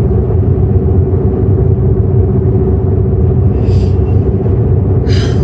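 Road and engine rumble inside a moving car's cabin: a steady, heavy low rumble with a constant hum.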